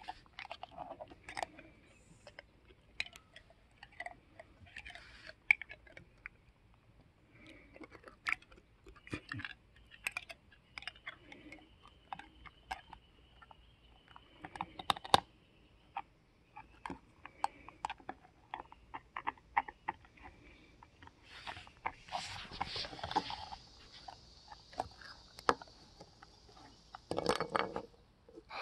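A dog chewing and gnawing on a hard object, with irregular sharp crunches and clicks from its teeth.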